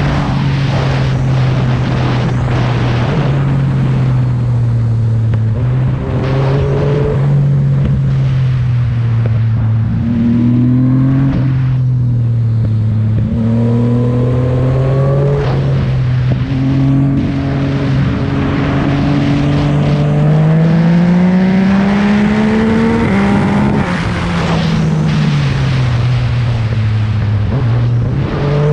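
Yamaha MT-09's three-cylinder engine running through an M4 aftermarket exhaust while riding. The note rises and falls with throttle and gear changes, with one long climb about two-thirds of the way through that drops off sharply.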